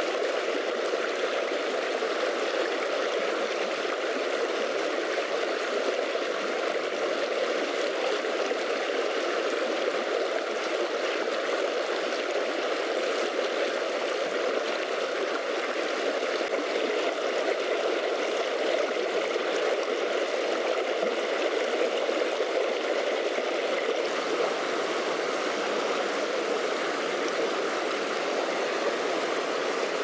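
Shallow mountain stream running over rocks: a steady rush of water.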